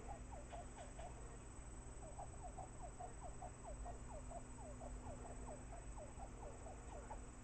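Pet gerbil giving a rapid series of short, falling squeaky chirps, about four to five a second. The chirps break off shortly after the start and resume about two seconds in. A faint steady hum lies underneath.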